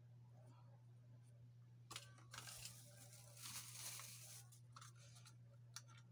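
Clear plastic packaging crinkling and tearing as a computer mouse is unwrapped, for about two and a half seconds starting about two seconds in, followed by a few sharp clicks. A steady low hum runs underneath.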